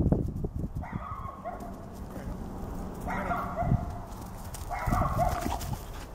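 German Shepherd Dog barking excitedly in short bursts, about one burst every two seconds, over dull low thumps.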